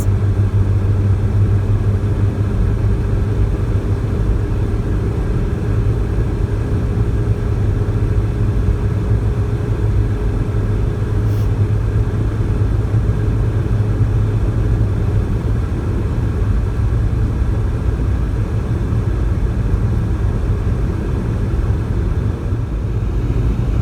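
Steady rumble of a moving Toyota car, engine and tyre noise heard from inside the cabin while driving, with a faint tone that fades out about halfway through.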